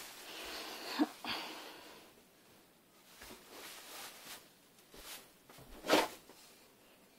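Clothing rustling and the phone being brushed and handled at close range as someone squirms into a cramped space, with a sharp knock about a second in and a louder bump about six seconds in as a hand grabs at the phone.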